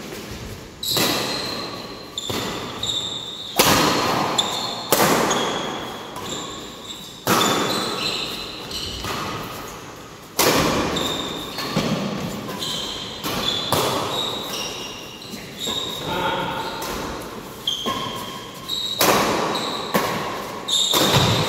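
A badminton rally: rackets striking the shuttlecock in sharp cracks about once every second or so, each echoing in a large hall. Short, high squeaks of court shoes on the floor come between the hits.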